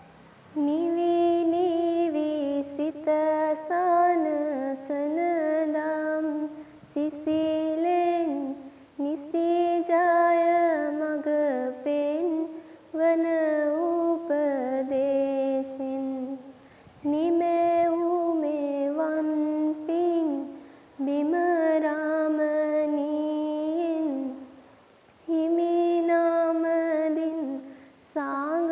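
A young girl's solo voice singing a slow, unaccompanied, chant-like melody, with held notes in phrases of about two to three seconds and short breaths between them.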